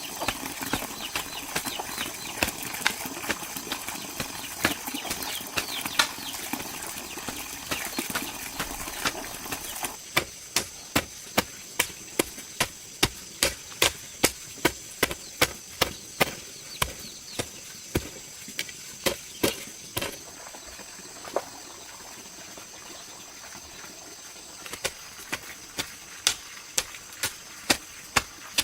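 A rustling haze, then a run of sharp, evenly spaced knocks about two a second from about ten seconds in. The knocks stop near twenty seconds and start again near twenty-five.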